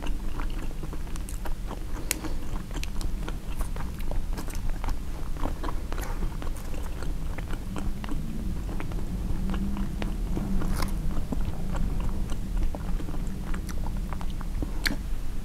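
Close-miked chewing and biting of a turkey sausage, egg and cheese bagel sandwich, with many small mouth clicks throughout.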